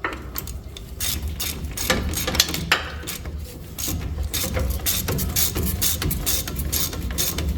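Ratchet wrench clicking rapidly as the nut on a new ball joint of a Chevrolet Colorado's front suspension is run down. The nut is just starting to tighten.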